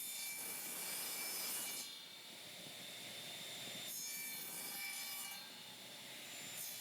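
A saw cutting a small notch into a wooden block, in two spells of cutting: one at the start and another about four seconds in.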